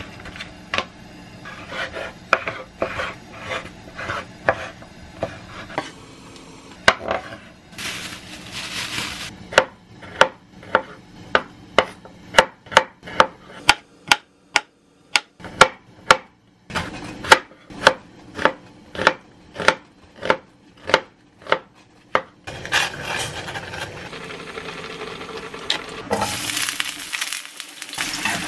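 A chef's knife chopping garlic cloves on a wooden cutting board, a run of evenly spaced strokes about two a second. Near the end, sliced garlic sizzles as it fries in oil in a frying pan.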